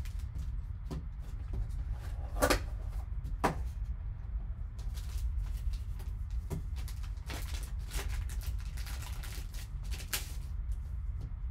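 Cardboard trading-card box being opened and handled, with a few sharp knocks early on. This is followed by crinkling and rustling as black plastic wrapping is pulled off a graded card, over a steady low hum.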